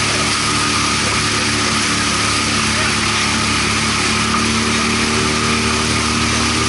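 Small aluminium motorboat's outboard engine running at a steady cruising speed, an even drone with a constant hiss of water and wind over it.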